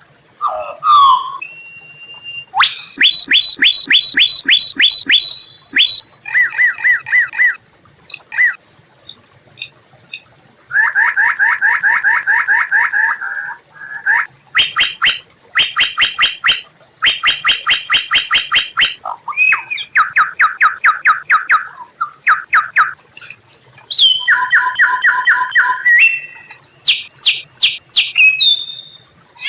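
White-rumped shama (murai batu) singing a varied song made of rapid trains of repeated notes. Each train of one to three seconds is a different phrase, from high clear whistles to lower chattering trills, with short pauses between them.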